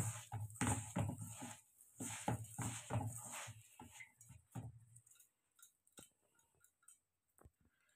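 Pearl millet grains, lightly moistened with water, being stirred and turned by hand in a steel bowl: rhythmic rustling, scraping strokes about three a second that stop about five seconds in, followed by a few faint clicks.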